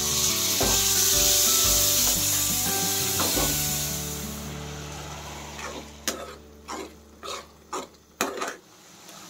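Chopped tomatoes and masala sizzling in hot oil in a steel kadai as a steel spoon stirs them. The sizzle is loud at first and dies away about halfway through. It is followed by several sharp knocks, like the spoon tapping the pan, with faint background music underneath.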